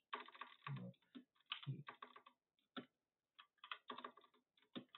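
Quiet typing on a computer keyboard: runs of keystrokes with a short pause about three seconds in.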